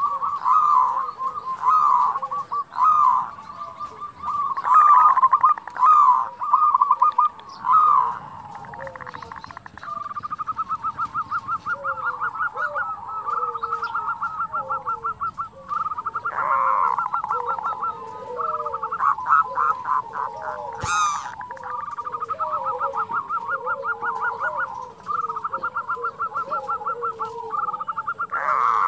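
Zebra doves (perkutut) calling: long runs of rapid rattling notes over short, repeated lower coos, the 'kerot' and rolling 'bekur putar' calls. One sharp click about two-thirds of the way through.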